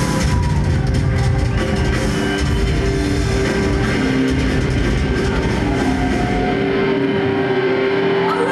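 Live heavy metal band playing, recorded by an audience camcorder: distorted electric guitar, bass and a drum kit pounding together. About seven seconds in the heavy low end and drum hits drop away, leaving held guitar notes.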